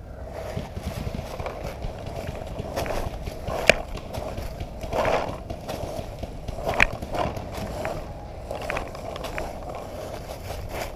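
Footsteps crunching and shuffling through dry leaf litter, with the rustle and knock of the paintball marker and gear carried while walking. Two sharp clicks stand out, about four and seven seconds in.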